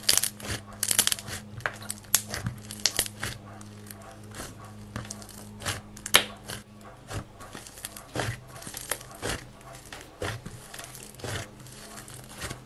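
Hands squeezing, pressing and kneading thick white clay slime, giving irregular crackling and popping, over a steady low hum.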